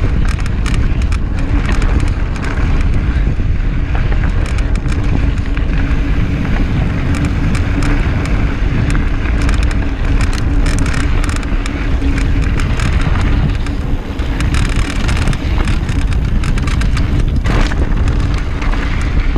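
Mountain bike ridden fast over a rocky dirt trail: wind rushing over the microphone and the tyres rolling on dirt and rock, with frequent short clatters from the bike over bumps. A steady hum runs through most of it.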